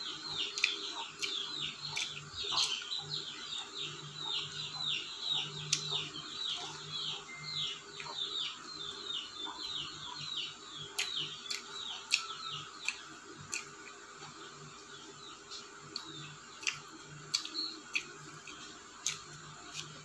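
Birds chirping in a quick run of high, downward-sliding chirps, about three a second, dying away after about ten seconds. Sharp crunches and clicks of someone chewing crispy fried chicken come through at intervals.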